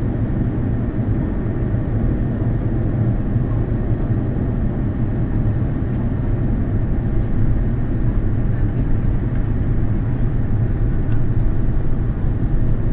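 Airbus A340-300 cabin noise on approach: a steady, low rumble of the four CFM56 engines and airflow, heard inside the cabin.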